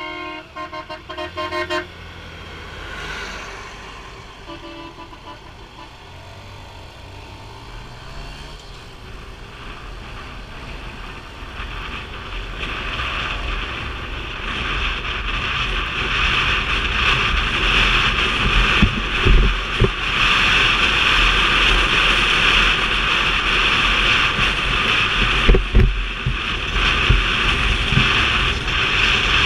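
A horn toots in a quick series of short beeps. Then a motorbike engine pulls away, rising in pitch as it accelerates. From about twelve seconds in, the loud, steady rush of riding at speed builds: wind buffeting the microphone over the engine.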